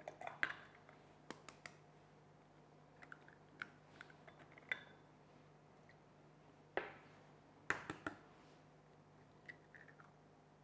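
Eggs being cracked on the edge of a bowl and emptied in: scattered light taps and clinks of shell against the bowl, the sharpest about half a second in and a cluster around eight seconds in.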